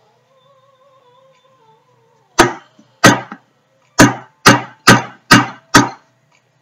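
Seven sharp, loud knocks of a utensil rapped against the mixing container to knock loose deodorant mixture that has hardened: two, then after a short pause five more at about two a second.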